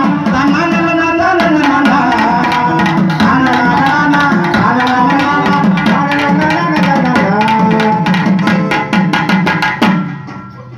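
Live stage band playing an instrumental tune: a gliding lead melody over quick tabla-style hand-drum strokes. The music stops abruptly about ten seconds in.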